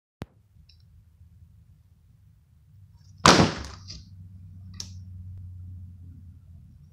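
A loud knock about three seconds in, then a smaller one about a second and a half later, over a low steady hum.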